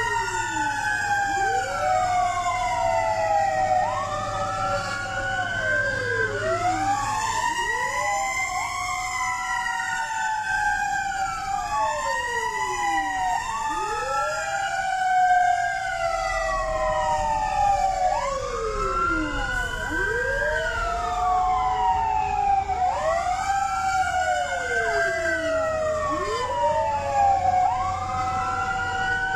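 Several fire engine sirens wailing at once, out of step with one another, each rising and falling in slow sweeps a few seconds long, over a low steady rumble.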